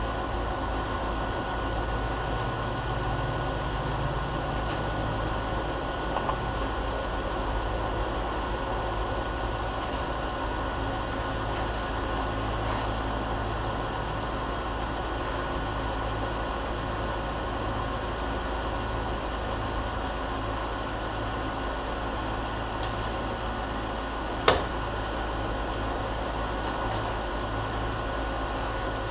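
Milling machine running steadily, a constant motor and spindle hum during spot-drilling of a bolt-hole pattern, with one sharp click about 24 seconds in.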